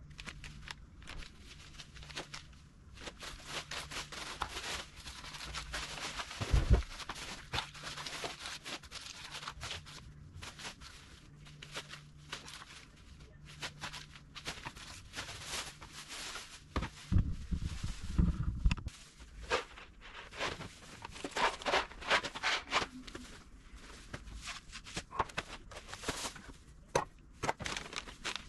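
Food packets and plastic bags rustling and crinkling as they are handled and sorted by hand, with knocks as items are set down on the counter and in a plastic basket. One loud thump comes about a quarter of the way in, and a run of low thuds a little past the middle.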